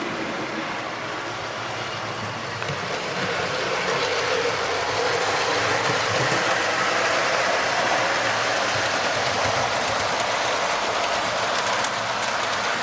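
Model train running along the layout's track: a steady whir of the locomotive's motor and wheels on the rails, getting a little louder about four seconds in.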